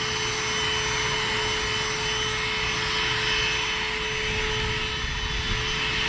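Cordless handheld vacuum cleaner running steadily: a constant motor whine over a rush of air as it sucks up loose potting soil.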